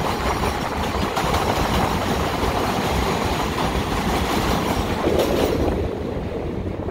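Steady rush of wind and road noise from riding an electric motorcycle through traffic; the bike itself makes almost no sound. The hiss eases a little about six seconds in.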